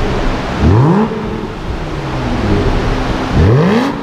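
Aston Martin DB9's V12 engine, fitted with a high-performance aftermarket exhaust, blipped twice: each rev rises sharply in pitch for about half a second and then drops back, the first about a second in and the second near the end.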